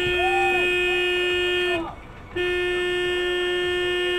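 Car horn sounding in two long blasts of about two seconds each, separated by a short break, with a steady pitch.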